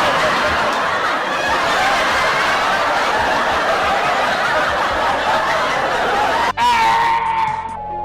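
Loud dense laughter of many people at once, as in a crowd-laughter sound effect, cutting off abruptly about six and a half seconds in. A short high tone follows.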